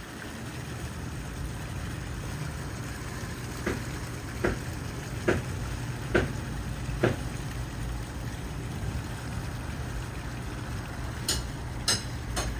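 Underwater ambience picked up by a submerged camera: a steady low engine hum carried through the water over a faint crackling hiss. In the middle comes a run of five evenly spaced knocks a little under a second apart, and near the end three sharper clicks.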